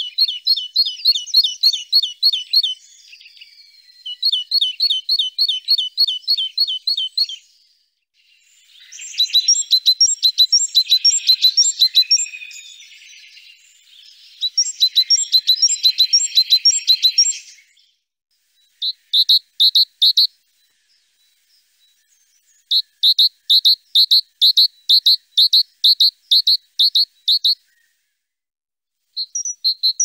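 Great tit singing: about seven songs of a high note phrase repeated rapidly, several times a second, each song lasting a few seconds with short pauses between them.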